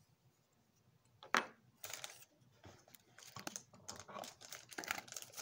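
Small plastic soap-making supplies being handled and unpacked: quiet at first, a sharp click a little over a second in, then a run of crinkling and light plastic clicks.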